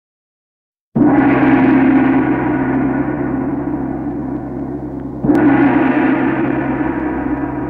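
Deep gong-like stroke a second in, ringing on and slowly fading, then struck again about four seconds later, the soundtrack of a studio logo.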